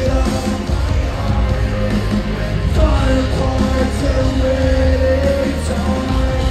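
Live rock concert: a band playing loud rock music with heavy bass and sung and shouted vocals.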